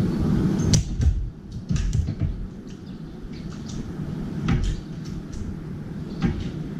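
A few sharp clicks and knocks as a crow steps from the balcony rail onto a stainless-steel feeder tray and its feet and beak tap the metal, heard about a second in, again past the middle and near the end, over a steady low rumble.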